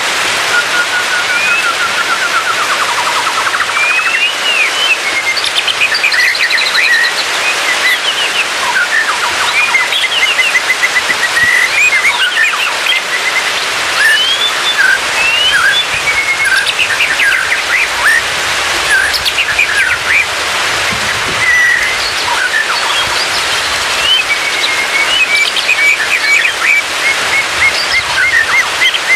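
White-rumped shama singing a varied song of whistled phrases, rapid trills and rising and falling glides, one phrase after another, over a steady rain-like hiss.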